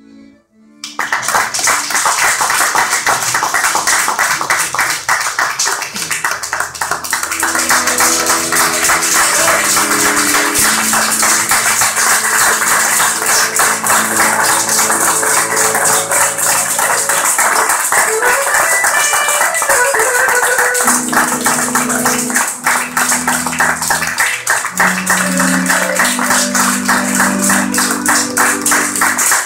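Piano accordion playing a folk tune with held notes and chords, starting about a second in, with a dense rhythmic clatter over it.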